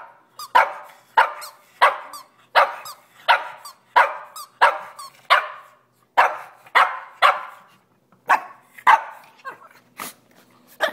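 Small pug–shih tzu mix dog barking over and over, about three barks every two seconds, the barks coming further apart near the end.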